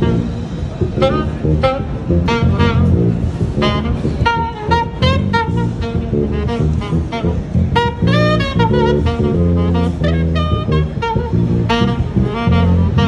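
Live funk-jazz jam: a saxophone plays a melody, bending and sliding between notes, over a syncopated line on a five-string electric bass.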